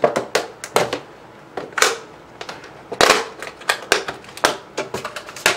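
A sealed speaker box being handled and opened: a quick run of sharp crackles, clicks and rustles of cardboard and plastic packaging, with two longer tearing rasps about two and three seconds in.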